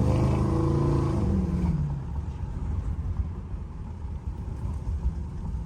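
The 5.3-litre LS V8 and exhaust of an LS-swapped 1985 Chevy Monte Carlo SS running while the car is under way. The revs fall off about two seconds in, and the engine then runs lower and quieter.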